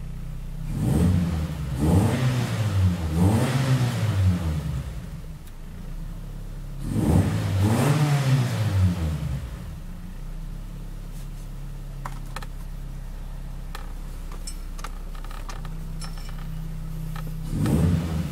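Car engine with stock engine mounts and a loud exhaust, heard inside the cabin. It idles and is revved three times in quick succession, once more about seven seconds in, and briefly again near the end, with a clean, crisp sound. A few faint clicks come during the idle in between.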